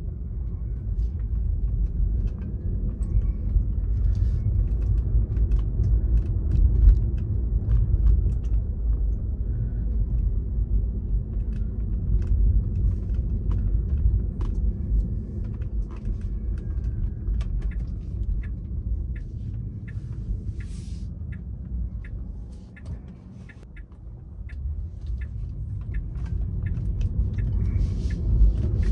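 Low road and engine rumble heard inside a moving car's cabin, with scattered light ticks. It drops for a moment about three-quarters of the way through, then builds again.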